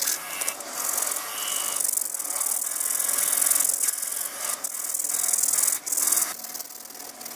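Small hand file rasping along the edge of a brass hammer head held in a vise: a high, hissing scrape in uneven strokes that eases off about six seconds in.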